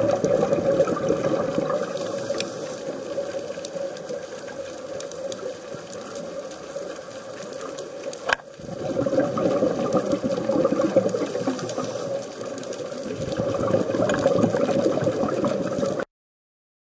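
Underwater sound recorded by a small camera: a steady rushing of water that swells and fades. About eight seconds in there is a sharp click and a brief drop, and the sound cuts off suddenly near the end.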